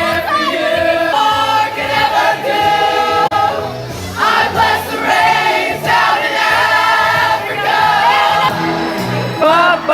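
A choir of mixed voices singing together, holding notes with vibrato and moving between chords.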